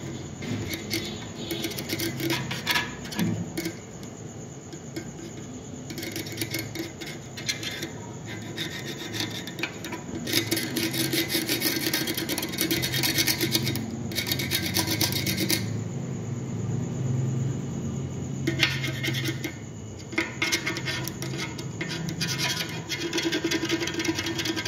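A hand tool scraping and brushing blistered, softened powder coat off a metal engine cover, in spells of quick rasping strokes with short pauses between them.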